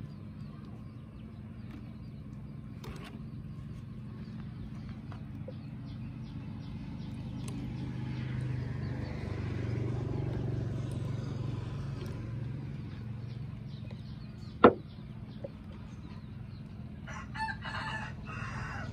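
Chickens in the background: a rooster crowing and hens clucking over a steady low engine hum, with one sharp click about three-quarters of the way through.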